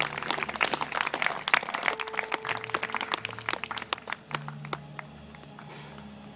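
A small crowd clapping, dense at first and then thinning out and fading after about four seconds.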